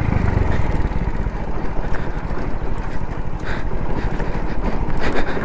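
Hero Splendor motorcycle's single-cylinder four-stroke engine running while riding off-road, its exhaust a fast, even pulsing, with wind buffeting the microphone.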